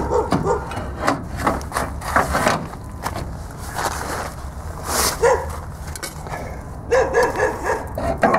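Irregular clanks and knocks of metal as the old steering linkage, the center link with its tie rods, is worked loose and pulled out from under the front end of a 1995 Nissan D21 pickup.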